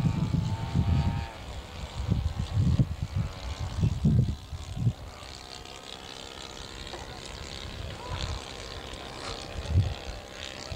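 Small radio-controlled model airplane engine buzzing as the plane flies by, dropping slightly in pitch and fading within the first second or so. Low rumbling thumps come and go until about five seconds in, then it stays quieter.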